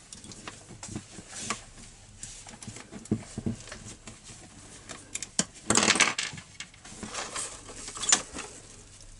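Metal clicks and clatter of hand tools and parts as a clamp screw is undone and a string trimmer's metal clutch bell housing is worked loose from its drive-shaft tube, with a louder burst of metallic rattling about six seconds in.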